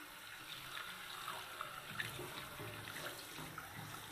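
Water running from an old chrome pillar tap into a ceramic wash basin, with hands splashing in the stream and rubbing the tap to rinse off the cleaner.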